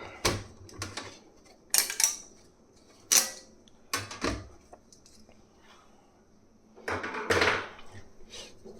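Hard plastic clicks, snaps and knocks as 3D-printed plastic parts are handled and their support material is broken off, with a longer clattering scrape about seven seconds in.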